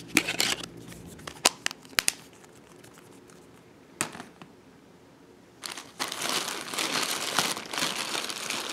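A few sharp clicks and clacks of plastic mobile phones being handled and set down on a pile. From about six seconds in, a plastic bag crinkles and rustles continuously as a hand rummages in it.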